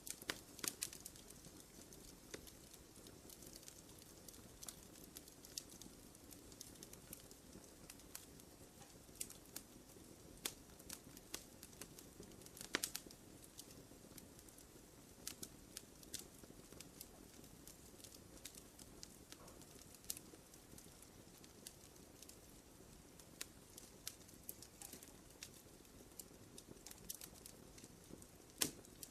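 Campfire crackling gently: scattered sharp pops and snaps over a faint low background, with one louder pop about 13 seconds in.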